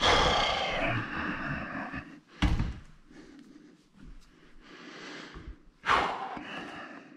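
Handling noises: a scraping rustle, then a sharp knock about two and a half seconds in and a second, softer thud near six seconds.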